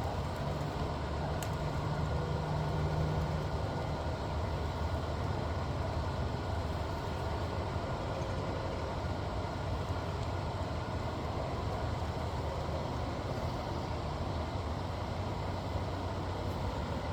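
A steady low motor hum with an even background hiss, unchanging throughout, and a single faint click about a second and a half in.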